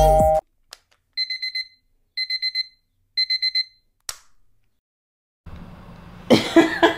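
Digital alarm clock beeping: three bursts of quick high beeps, each burst about a second after the last, then a single click.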